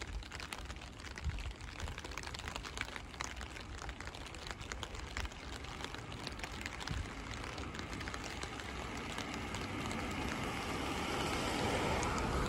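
Rain falling, with many small drops ticking on nearby surfaces over a steady hiss. A broad rushing noise slowly grows louder over the last few seconds.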